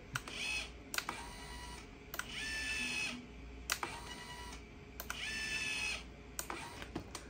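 Drive motors of a 3D-printed Wall-E animatronic motion neck whining twice as the neck moves, each run about a second long, rising briefly in pitch and then holding steady. Light clicks come between the runs.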